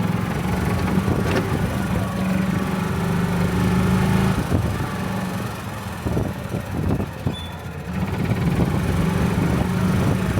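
Golf cart driving along, a steady low motor hum with rattles and knocks. The hum drops away for a couple of seconds after the middle, then comes back.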